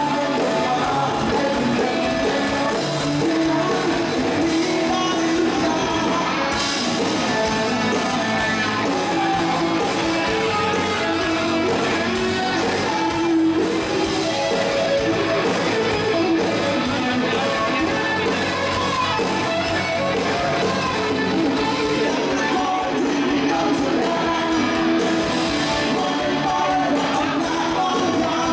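Live rock band playing, with singing and electric guitar over drums, the music running continuously at a steady loudness.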